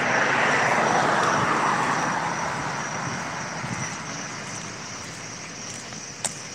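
A vehicle going by on the road: tyre and road noise, loudest at the start and fading away over about four seconds.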